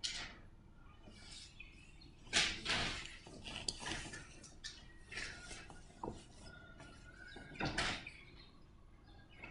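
Classroom room noise while students work quietly: scattered short rustles and knocks, the loudest about two and a half and eight seconds in.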